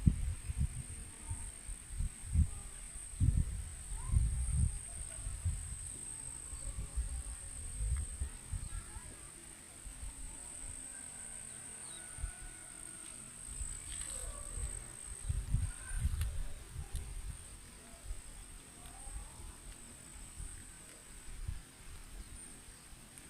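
A steady, high-pitched insect chorus, with wind buffeting the microphone in irregular gusts and a few faint chirps.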